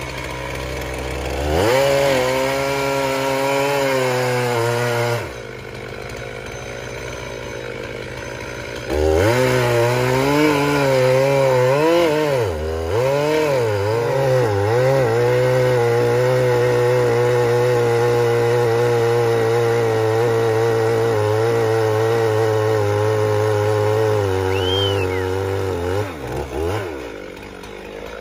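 Gas chainsaw cutting into a eucalyptus trunk: it idles, revs up about two seconds in, drops back to idle about five seconds in, then runs at full throttle again from about nine seconds. Its pitch dips and recovers as the chain loads in the wood, holds steady, and eases off near the end.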